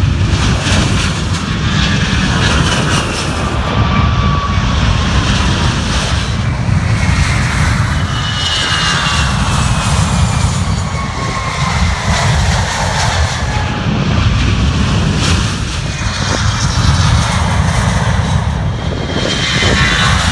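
Jet airliner passing close by, its engines loud with a heavy low rumble and whining tones that slide slowly downward in pitch.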